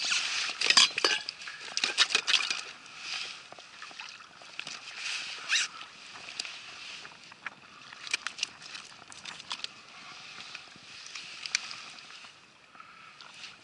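Handling noise on a kayak: irregular clicks and clinks of a metal fish lip gripper and hook-removal tool against a bluefish and the hull, with the sound of water around the boat. The clicking is busiest and loudest in the first few seconds, then thins out.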